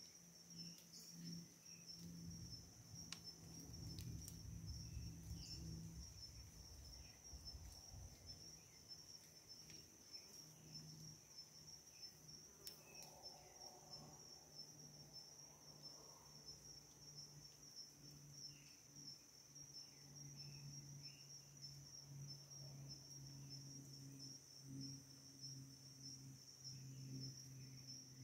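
Faint, steady chirring of insects in a continuous high, finely pulsing trill, with a few faint short chirps scattered over it.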